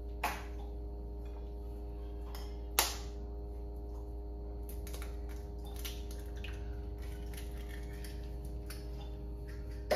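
Eggs being cracked against a bowl: a few sharp knocks, the loudest about a quarter second in and about three seconds in, with fainter taps between. A steady background hum runs throughout.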